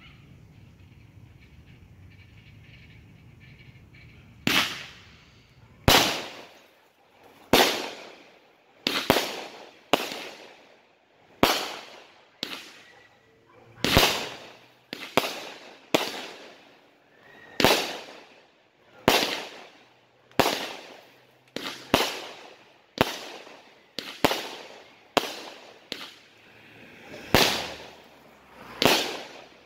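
Legend Fireworks 'Bad Like Crab' consumer firework cake firing. After about four seconds of quiet it sets off a long run of sharp, hard-hitting bangs, roughly one a second and sometimes two close together, each trailing off briefly.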